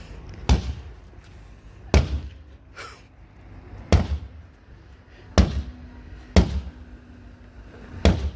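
Sledgehammer striking a car's windscreen six times: heavy smashing blows at uneven gaps of one to two seconds, each with a short ringing tail.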